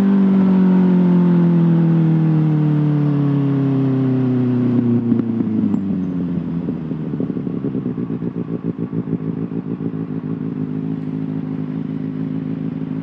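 Kawasaki ZX6R 636cc inline-four engine coming off the throttle, its revs falling steadily for about six seconds. It then settles into a lumpy, pulsing idle.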